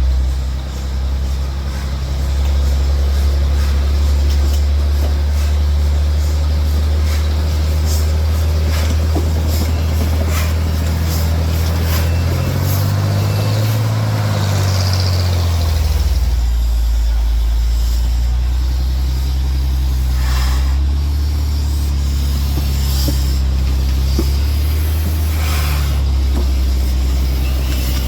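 Engine of the vehicle towing a steam locomotive, running steadily under load. It revs up and settles back down about halfway through, with scattered short clicks and hisses over it.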